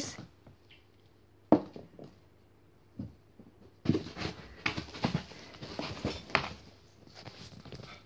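Cat pawing and scratching at a fleece blanket and plastic pet bed: a sharp knock about a second and a half in, then a few seconds of busy scratching and rustling.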